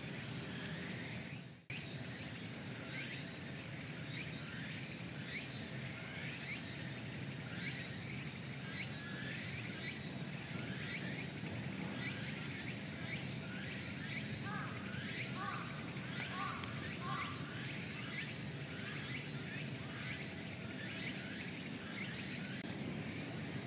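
Steady outdoor background noise with many short, high, falling chirps repeating throughout, and a few shorter, lower notes in the middle stretch. The sound briefly cuts out about a second and a half in.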